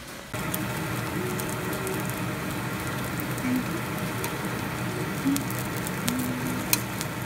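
Cheese takoyaki sizzling in the wells of a takoyaki pan, with short sharp clicks as metal picks turn the balls. The sizzle starts suddenly just after the beginning and then stays steady.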